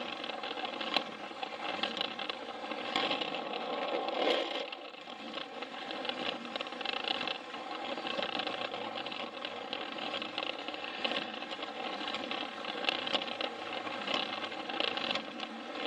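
Plarail toy train's battery motor and plastic gearbox running steadily with a whir, with a few sharp clicks along the way.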